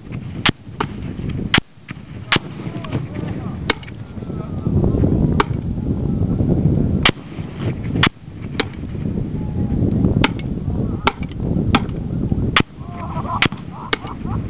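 Rifle gunfire: more than a dozen single shots at an irregular pace, roughly a second apart, over low wind rumble on the microphone.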